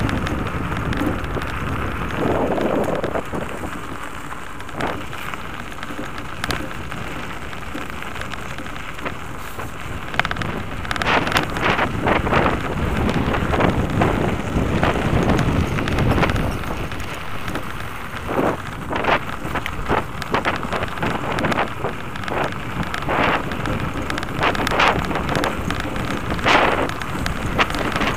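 Wind buffeting the microphone over the noise of a Blokart land yacht rolling across paved ground, with frequent sharp crackles and knocks from about ten seconds in.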